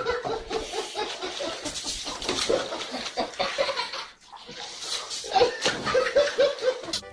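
People laughing and chuckling in short runs, over water splashing in a basin as a cat thrashes about in it.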